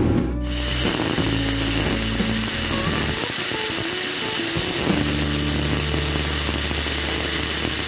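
Electric angle grinder fitted with a metal sanding disc, running with a steady high whine. Background music plays underneath, its low notes changing every second or two.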